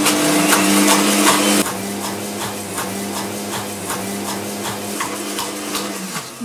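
Electric kitchen mixer running at medium speed, creaming room-temperature fat with brown sugar: a steady motor hum with irregular clicks over it. It drops in level and pitch about a second and a half in, then stops about six seconds in.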